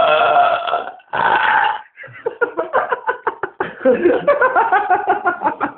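A man belching loudly, bringing up gas from kebab and cola. A long belch ends about a second in and a shorter one follows, then a long rattling run of rapid choppy pulses, about five a second.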